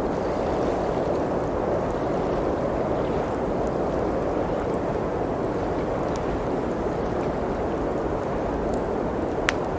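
Blizzard wind rushing steadily, with a wood fire crackling: scattered small pops and one sharper pop near the end.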